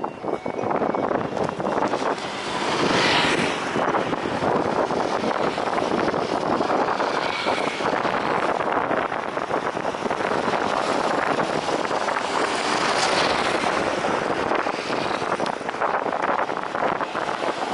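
Aircraft engine running steadily as the plane comes in to land, with gusting wind rushing over the microphone.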